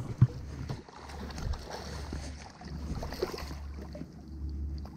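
A steady low rumble with faint scattered clicks and knocks from the spinning rod and reel as a hooked fish is reeled in, with a sharper knock about a quarter second in.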